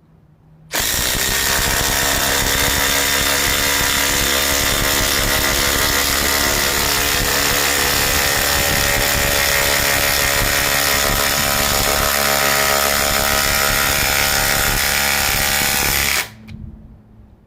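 Ryobi PBLID02 brushless impact driver in mode 3 hammering a 5-inch, 3/8-inch lag screw in. It starts suddenly, runs steadily for about fifteen seconds and stops abruptly near the end, having driven the lag without struggling.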